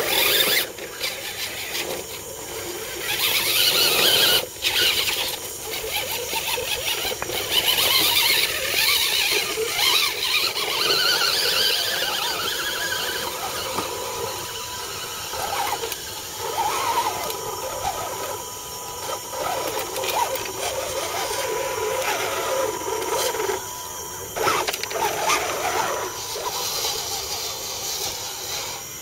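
Electric motors and gear drives of RC crawler trucks whining as they climb over rocks and roots, the pitch rising and falling with the throttle, with a few knocks of tyres and chassis on rock.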